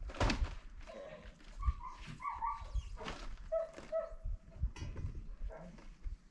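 An animal whining in a series of short, high, bending cries, among low knocks.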